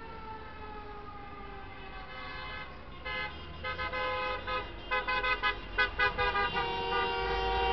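Vehicle horns in a street: a long horn note sliding slowly down in pitch, then from about three seconds in many short horn blasts honked in quick succession, growing louder, with a horn held on near the end.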